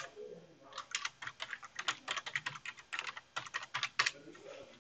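Typing on a computer keyboard: a quick, uneven run of keystroke clicks spelling out one word, starting about a second in and stopping a little after four seconds.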